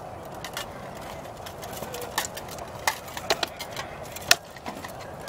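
Rattan sword blows striking a shield and armour in armoured combat: several sharp knocks from about two seconds in, the loudest a little past four seconds.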